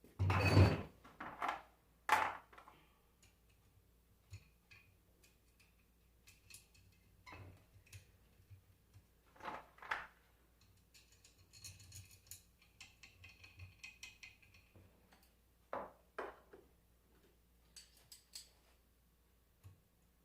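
Metal alternator parts and hand tools being handled on a workbench during disassembly: scattered clinks and knocks, several stronger ones near the start, with a stretch of light metallic rattling and jingling in the middle.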